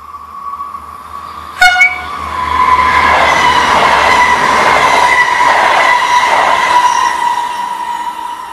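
Two coupled SNCF X72500 diesel railcars passing at speed: a short horn blast about two seconds in, then the loud rush of the train going by, easing off near the end.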